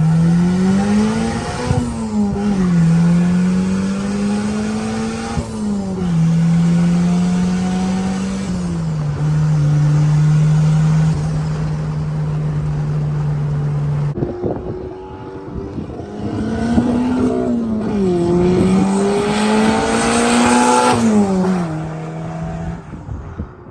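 Turbocharged Nissan SR20 four-cylinder engine, running 4 psi of boost, pulling hard through the gears: its pitch climbs through each gear and drops at each upshift, three shifts in a first run and then a steady hold. About two thirds through, the sound breaks off and a second run climbs through two more shifts.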